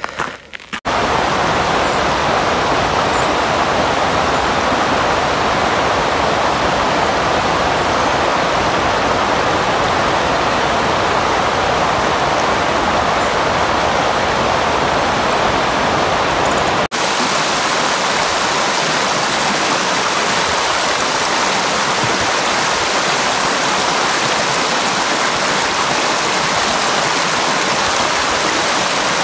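Steady rushing of a shallow, rocky stream flowing over stones. About halfway through the sound breaks off for an instant and resumes with less low rumble.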